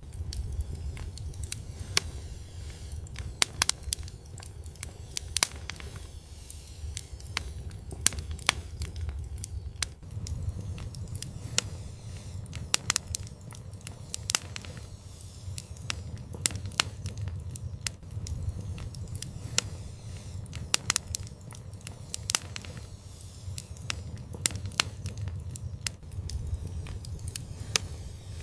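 Wood fire crackling: irregular sharp pops and snaps, several a second, over a steady low rumble of the flames.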